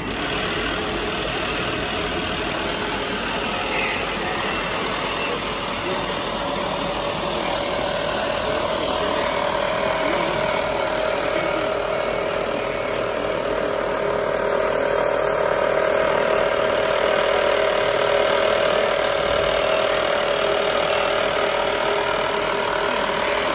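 Steady engine-like machine hum with a held tone, mixed with a murmur of voices.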